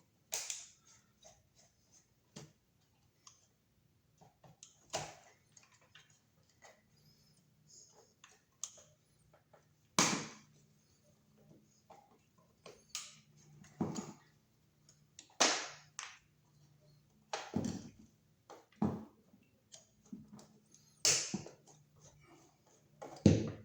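Irregular sharp clicks and knocks, a dozen or so louder ones spread unevenly with smaller ticks between them, from hand work on an old two-prong electrical receptacle and its box.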